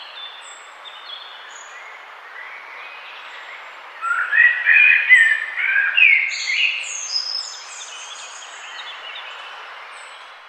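Several songbirds chirping and trilling over a steady hiss of background noise. The chirping grows loud for about three seconds, starting about four seconds in, then settles back to scattered calls.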